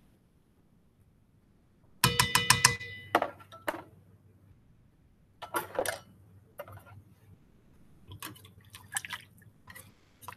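Metal utensils clattering with a quick run of ringing strikes about two seconds in, then scattered clinks, and near the end a wire whisk clinking against a stainless steel mixing bowl as it breaks up thick raspberry jam.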